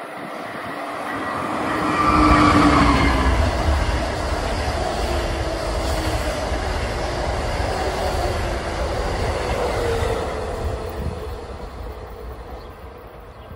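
Amtrak electric passenger train passing at speed on the near track. The sound builds as it approaches and the locomotive's whine drops in pitch as it goes by about two seconds in. Then comes a steady rumble of the coaches' wheels on the rails, fading over the last few seconds.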